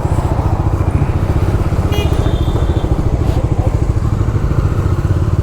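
Motorcycle engine running with a steady, evenly pulsing low beat, as the bike moves off. A brief high tone sounds about two seconds in.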